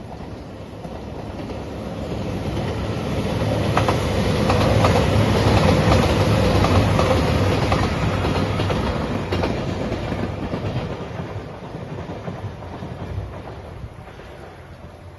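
A train passing close by, growing louder to a peak about five to seven seconds in and then fading away, with the clack of its wheels over the rail joints.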